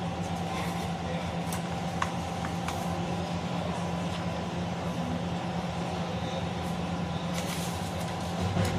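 A steady mechanical hum with a few faint clicks, and a paper page rustling near the end as it is lifted and turned.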